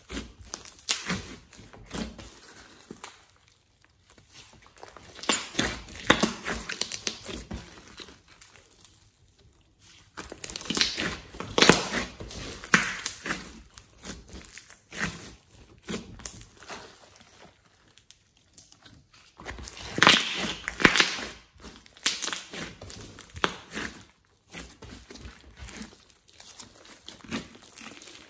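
Hands squeezing and kneading a large lump of glossy slime: sticky squishing with rapid little clicks and pops from air pockets. It comes in bursts of a second or two with short pauses between squeezes.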